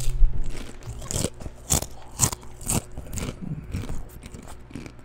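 Crunchy food bitten and chewed right at a microphone, mukbang-style, with crisp crunches about twice a second that are loudest in the middle seconds.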